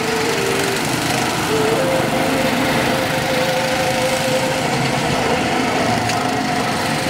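Several go-karts' small engines running together on a track: a steady engine drone, its pitch stepping up slightly about two seconds in.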